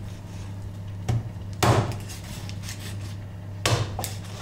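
A large kitchen knife chopping through a rabbit carcass onto a wooden cutting board: four sharp chops, one about a second in, a louder one just after, and a quick pair near the end.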